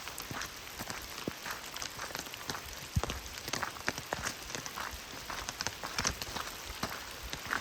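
Steady rain falling, with individual drops ticking irregularly close by over a soft hiss, and one dull thump about three seconds in.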